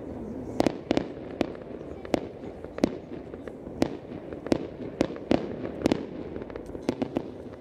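Aerial fireworks bursting: a run of sharp bangs and cracks at uneven spacing, roughly one or two a second, over a steady low background noise.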